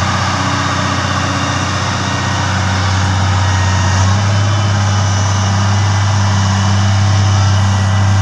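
Motor grader's diesel engine running steadily with a deep hum as the machine works the soil, getting a little louder about four seconds in.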